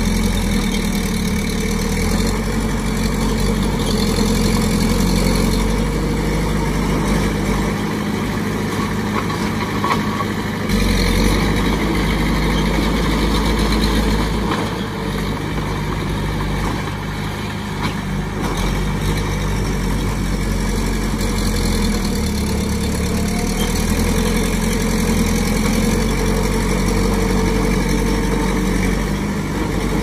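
Mini bulldozer's diesel engine running steadily while it works, its low rumble easing off and coming back a couple of times.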